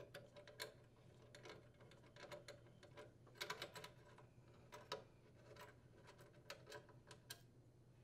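Faint, irregular small clicks and taps of fingers working loose screws and lifting an old flame rollout switch off a furnace's sheet-metal burner box, with a short cluster of louder clicks about three and a half seconds in.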